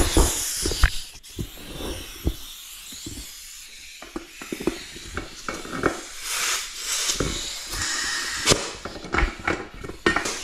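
Knobby rubber ATV tire being worked by hand onto its steel rim: rubber scuffing and rubbing, with scattered knocks and clicks.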